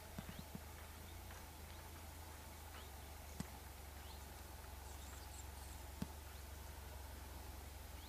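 Quiet outdoor background with a steady low rumble. A few soft clicks come just after the start, and two single sharp taps come later, a few seconds apart.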